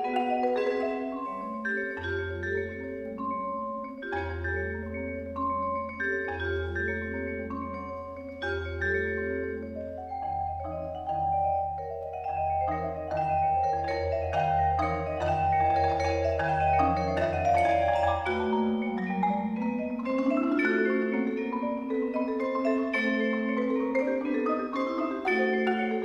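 Marimba and vibraphone duo playing a fast toccata, both instruments struck with mallets in quick, continuous note patterns. A low marimba bass note is held underneath from about two seconds in until about two-thirds of the way through, and the lines climb upward near the end.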